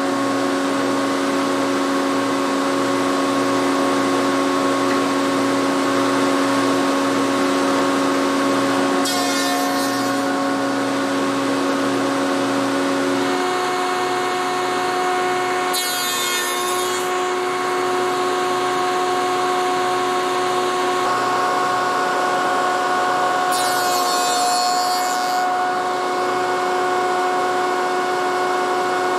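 Spindle shaper running steadily, with three short bursts of cutting noise spread through as door rail ends on a coping sled are fed past the cutter to cut the cope profile.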